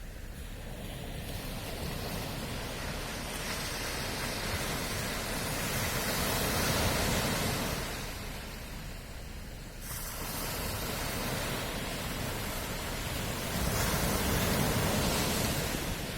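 Ocean waves breaking and washing on a shore, two slow swells of surf, each rising and ebbing over several seconds.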